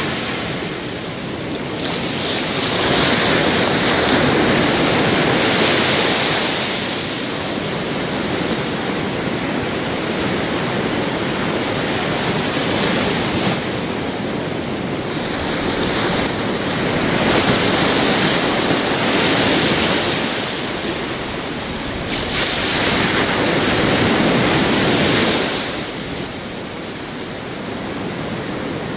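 Pacific surf breaking and washing up a beach: a constant rush of water that swells louder in three long surges as waves come in, then eases back.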